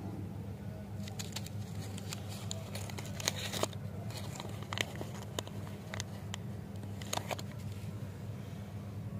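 A lollipop wrapper being peeled and pulled off by hand: scattered crinkling and crackling clicks, busiest in the first few seconds and again about seven seconds in, over a steady low hum.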